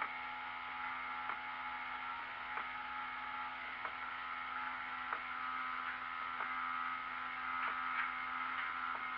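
Automatic pet feeder's small electric gear motor running steadily, turning the scoop drum through its drive, now on a home-made brass replacement cog. A faint tick comes round roughly every second and a quarter.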